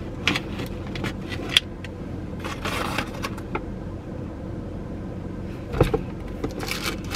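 Rummaging through takeout food packaging, with rustling and scattered clicks and knocks, over the steady low hum of a car idling.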